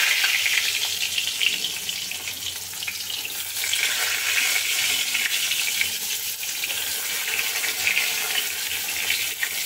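Eggplant slices sizzling and crackling as they shallow-fry in hot oil in a kadai, a steady frying hiss that is loudest right at the start.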